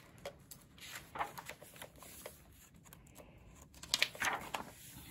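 Pages of a hardcover picture book being turned by hand: paper rustling and flapping in two short bouts, about a second in and again around four seconds in.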